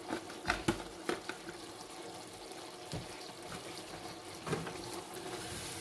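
A dish of chili con carne sauce simmering with a steady low hiss, while a ladle stirs in freshly added spice powder, knocking softly against the dish a few times.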